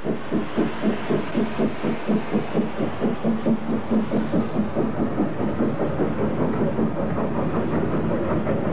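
Small steam tank locomotive pulling a train away, its exhaust chuffing at about three beats a second; after about six seconds the beats blend into a steadier rush.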